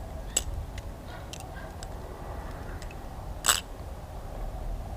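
Balisong (butterfly knife) handles clicking and clacking as the knife is flipped through a combo: a sharp click about half a second in, a few faint ticks, and a louder clack about three and a half seconds in.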